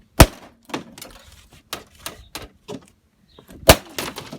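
Hard blows smashing a vintage modem's plastic case: two loud strikes, one just after the start and one near the end, with lighter knocks and clattering pieces between them.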